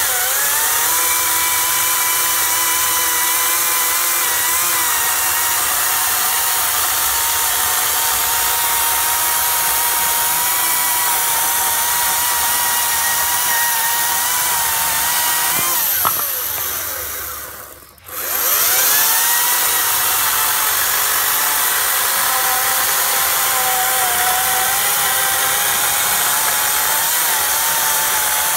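Ryobi RCS36X3550HI 36V brushless cordless chainsaw with a 14-inch bar cutting through a log about 19 cm thick: a steady electric motor whine with the chain chewing wood. About sixteen seconds in the trigger is released and the motor winds down almost to a stop, then it spins back up and goes on cutting.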